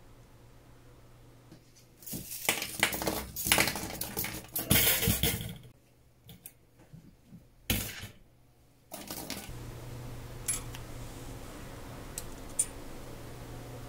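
Stainless steel mesh cleaning baskets clinking and rattling as they are handled for about four seconds, then a few light clicks and one sharp knock. A steady low hum follows.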